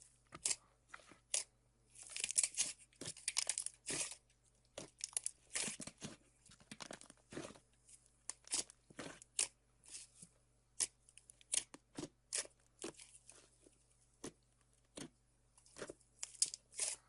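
Slime being squeezed and pulled by hand, giving irregular crackles and sticky pops, with a denser run of crackling a couple of seconds in and again near the end.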